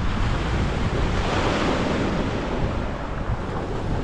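Small waves breaking and washing on a pebble beach, one swelling about a second in and easing off, with wind rumbling on the microphone.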